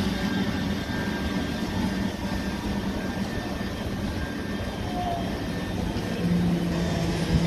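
c2c Class 357 Electrostar electric multiple unit running past, a steady rumble of wheels on rail with a low electric traction hum. About six seconds in it grows louder with a stronger hum as a second train approaches.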